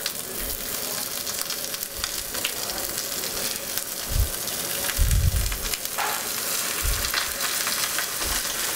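Skin-on chicken breasts searing skin-down in hot olive oil in a braising pan, the oil crackling and sizzling steadily as the skin begins to crisp. A few dull bumps come about four, five and seven seconds in.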